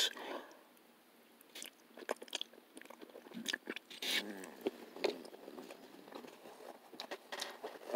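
A person chewing food close to the microphone, quietly, with scattered small clicks and mouth noises.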